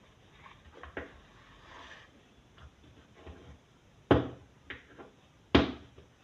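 Face cream packaging being handled: faint ticks and rustles, then two sharp clicks or knocks about four and five and a half seconds in.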